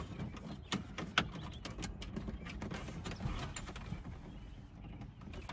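Irregular clicks and light knocks of the plastic dash bezel of a second-generation Dodge Ram being worked loose and pulled from the dashboard, its brittle clips creaking and snapping against the dash.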